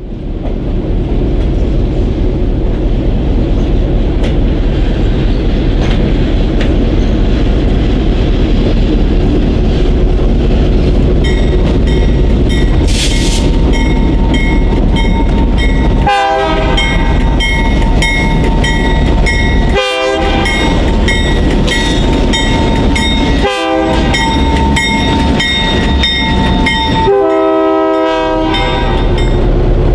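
Diesel freight locomotive running with a heavy low rumble. From about a third of the way in, its air horn sounds in a series of long blasts with short breaks between them, then a shorter blast near the end.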